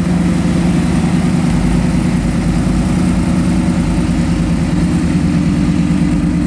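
First-generation Chevrolet Camaro convertible's engine idling steadily at low speed as the car rolls slowly by.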